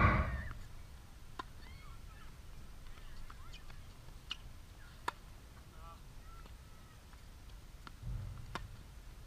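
A tennis rally: sharp pops of the ball off rackets and the hard court every second or so, the crispest near the end as the near player hits a forehand. Birds chirp faintly throughout. A brief loud honk-like burst sounds at the very start.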